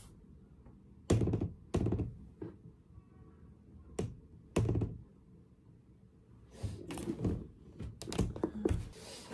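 Close handling noise: a run of dull thumps and knocks, single ones about a second, two and four seconds in, then a quicker cluster of several near the end, as a hand works at the edge of a white door or cabinet.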